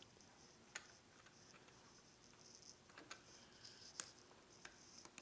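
A few faint, sharp clicks of plastic Lego bricks being handled and pressed into place, spaced irregularly, the clearest about four seconds in.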